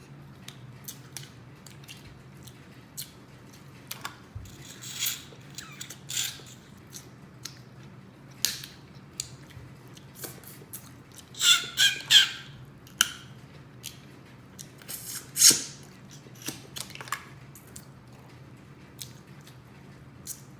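Alaskan crab leg shells being cracked and pulled apart by hand, with scattered small clicks and snaps, and a few louder wet sucking and smacking sounds of the meat being eaten about five, twelve and fifteen seconds in.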